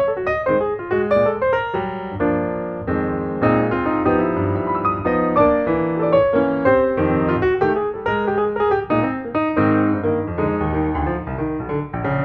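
Piano music, a quick run of notes over chords.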